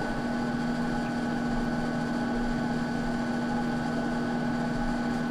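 Small electric fan running with a steady, unchanging hum.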